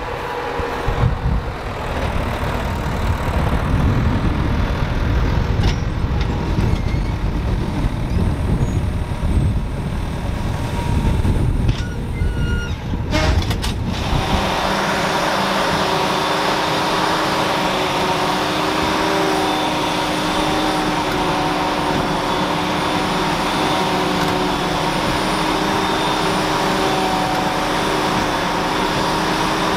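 Field machinery working: the tractor and Goweil bale wrapper, with a heavy, uneven low rumble. About halfway through, the sound changes to the steady drone of the Claas forage harvester and Krone BiG Pack baler, with a constant whine over it.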